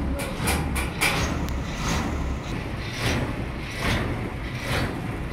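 Sawmill machinery running: a steady low engine drone with irregular scraping knocks, about one or two a second.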